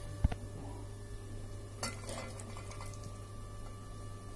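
Steel ladle and metal pots knocking and scraping as cooked vegetables are tipped and scraped from a pan into a cooker of boiled toor dal. There is a dull knock about a quarter second in and a short clatter around two seconds in, over a steady low hum.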